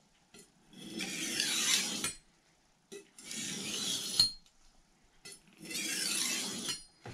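Steel knife blade drawn down and across a fine sharpening stone: three strokes, each a hiss of steel on stone lasting a little over a second, with a small click as the second stroke ends.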